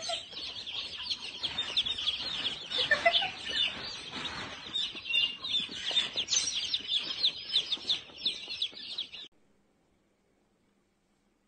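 A crate full of baby chicks peeping, a dense and continuous chorus of rapid high chirps. It cuts off suddenly about nine seconds in, leaving near silence.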